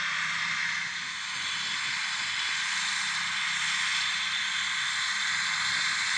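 Fendt 826 Vario tractor running under load with its Kuhn triple disc mowers spinning: a steady engine drone under a strong, even high hiss.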